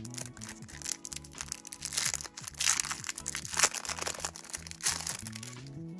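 Clear plastic wrapper crinkling as it is peeled open from a memo pad, loudest about two to four seconds in, over soft background music.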